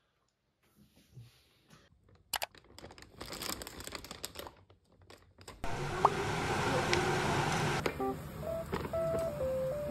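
Clear plastic sheeting crinkling and rustling, followed by a steady hiss. Near the end a simple tune of plain electronic tones begins.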